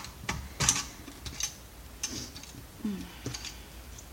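Scattered light clicks and rattles of small plastic and metal parts as wire connectors are worked loose inside a dismantled computer monitor.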